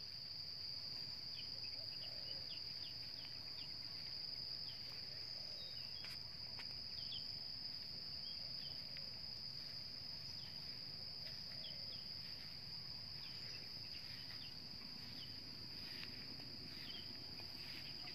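A steady high-pitched insect drone, with scattered short high chirps over it.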